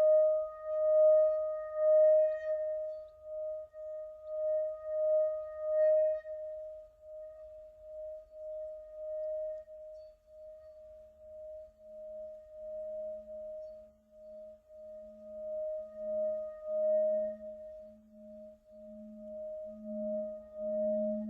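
A sustained ringing tone that wavers and swells in loudness. A second, lower tone joins about halfway through and grows louder toward the end.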